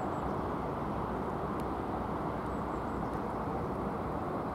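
Steady outdoor background rumble with no distinct event.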